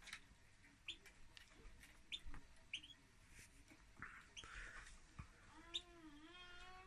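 Caged pet finches giving short, faint chirp calls, one every half second to a second. About two-thirds of the way through, a lower, drawn-out wavering call with several pitches joins them.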